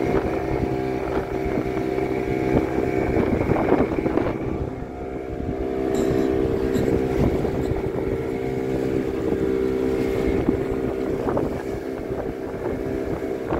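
Motor of a small tourist boat running steadily under way, a constant hum with wind noise over it; the level dips briefly about five seconds in.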